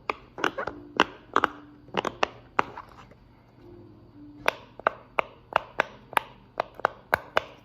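Silicone pop-it fidget toy being pressed, its bubbles popping one after another in sharp pops, about two or three a second, with a short pause about three seconds in.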